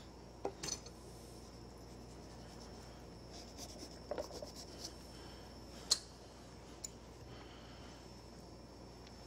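Small carving knife cutting and scraping into cantaloupe rind, in a few faint scrapes and soft clicks, with a sharper click about six seconds in. A faint steady hum lies underneath.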